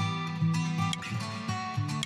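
Background music: sustained instrumental notes with a sharp tick recurring on the beat.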